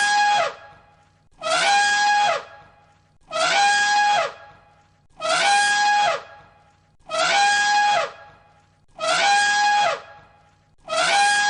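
Elephant trumpeting, the same call of about a second repeated on a loop about every two seconds. Each call is a steady high blare that drops in pitch at the end.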